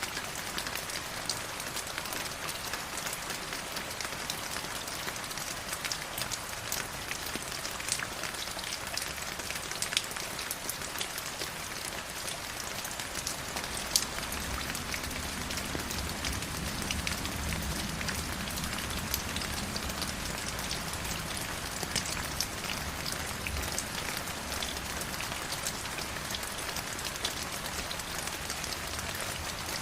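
Stream water flowing over rocks: a steady rushing hiss dotted with many small sharp splashes, with a deeper low rumble swelling through the middle stretch.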